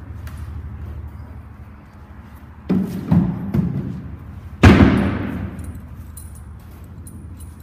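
A metal hand tool striking the wooden window prop: a few quick knocks, then one heavy blow about four and a half seconds in that rings on and fades over a couple of seconds.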